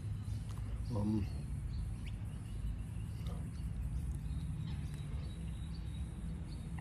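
Steady low hum of outdoor background noise, with one short voice-like sound about a second in and a few faint ticks.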